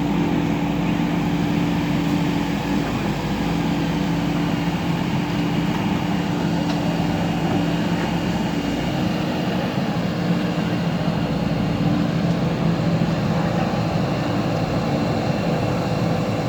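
JCB backhoe loader's diesel engine running steadily at a constant pitch.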